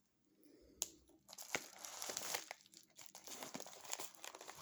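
Packaging in an opened shipping box being handled and crinkled by hand. There is a single sharp click just under a second in, then steady crinkling and rustling with small snaps.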